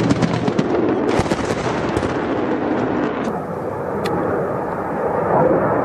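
Bursts of rapid machine-gun fire, many sharp shots in quick succession, for the first two seconds. The sound then switches abruptly to the steady rushing roar of a fighter jet flying overhead, with one sharp crack about four seconds in.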